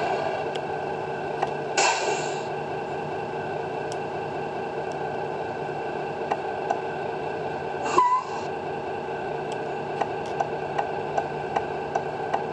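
Sound unit of a Tamiya Scania R620 radio-controlled truck playing a low, steady engine idle. Two short hisses come about two and eight seconds in, and a run of quick, regular ticks, about two or three a second, starts near the end.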